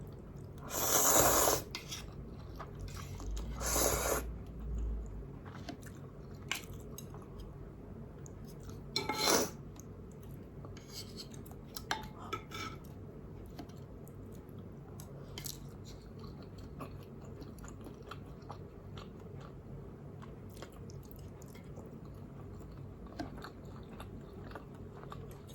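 A person eating spicy instant noodles: chewing, with three loud, short noisy bursts in the first ten seconds, then quieter chewing and small clicks of utensils against the bowl.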